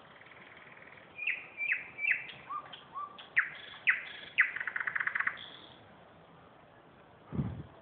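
Small songbird singing one phrase: a run of short, falling whistled notes that speed up into a rapid trill with a final higher note. Near the end comes a single low thump.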